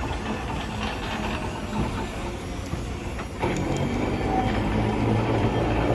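Vintage streetcar No. 582 passing close by on street track, its wheels running on the rails with motor and running-gear noise. About halfway through it gets louder, with a steadier low hum.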